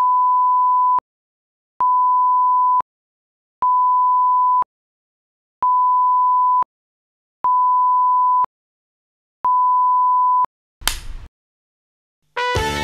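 Broadcast test-card reference tone (1 kHz) beeping six times, each beep a steady pitch about a second long with a gap of about a second between them. Then a short burst of noise, a moment of silence, and music starts near the end.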